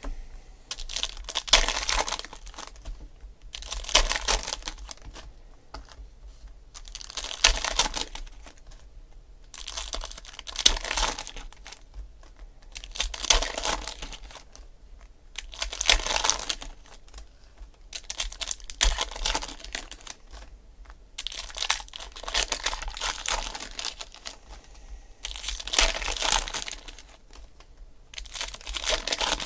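Foil wrappers of Panini Select football card packs being torn open and crinkled one after another, a burst of tearing every two to three seconds.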